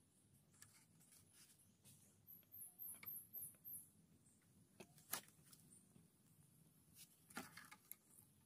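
Faint crackling of a small fire of burning coconut husk and dry twigs, with two sharper pops about five and seven and a half seconds in. A quick run of short, very high chirps comes between about two and four seconds in.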